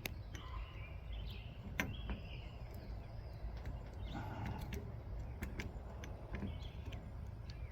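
Quiet outdoor background with a steady low rumble and faint high chirps, broken by a few light clicks of small carburetor parts being handled and fitted, the sharpest a little under two seconds in.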